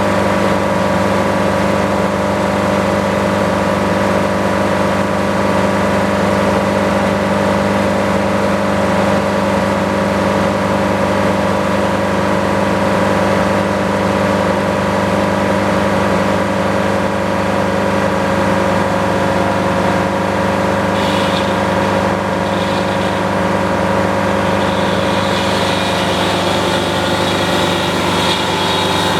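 Sawmill engine running steadily under load, with a higher hiss coming in over it from about three-quarters of the way through.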